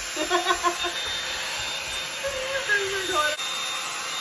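Bed Head Blow Out Freak hot-air volume brush running steadily: a constant rush of blown air with a thin, steady high whine from its motor.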